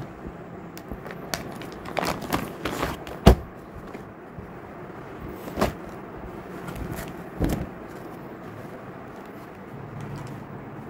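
Clear plastic packaging crinkling and embroidered fabric being handled and unfolded, with scattered short clicks and knocks, the loudest about three seconds in, over a steady low background noise.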